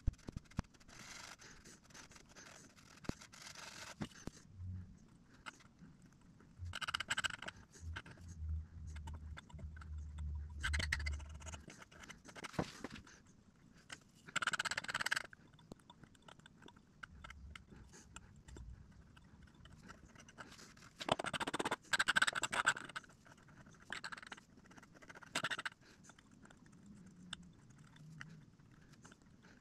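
A hand scratch awl scraping and picking at the base of a pine bowl, heard as short bouts of faint scratching at irregular intervals. A low hum sounds for several seconds during the first half.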